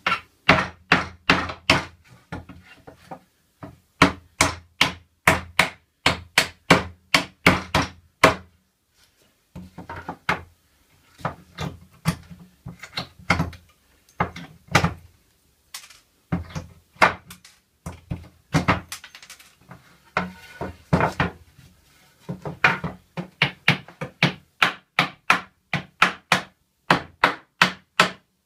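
Hammer blows on a pallet-wood slat: runs of quick, sharp knocks, about two to three a second, broken by a few short pauses.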